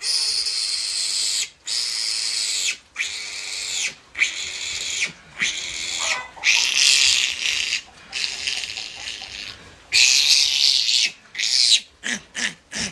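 Newborn piglet squealing loudly and repeatedly while held for an iron injection: a string of long, shrill screams about a second each, then quicker short squeals near the end.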